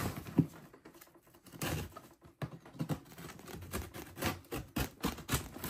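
A dull knife blade sawing and scraping through the taped seam of an old box: irregular scratches and small crackling clicks, sparse at first and coming thicker in the second half.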